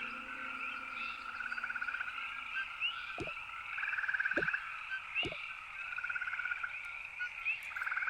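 A chorus of frogs calling: repeated pulsing trills, each under a second long, come every second or two over a steady, higher-pitched chorus of calls.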